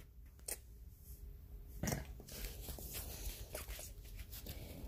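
Faint handling noise of a phone held in the hand while filming: soft rustling with a few clicks, the loudest about two seconds in.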